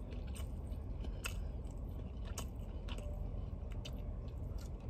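A person chewing a mouthful of a Popeyes fried chicken sandwich close to the microphone, with a handful of sharp crunches and mouth clicks spread through the chewing. A steady low rumble runs underneath.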